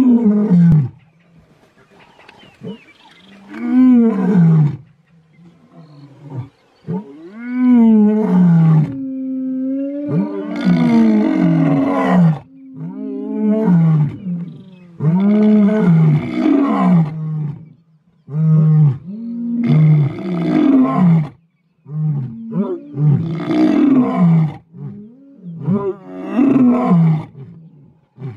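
Two male lions roaring together in a bout: a few long roars build up, then a series of shorter grunting roars repeats about every two seconds.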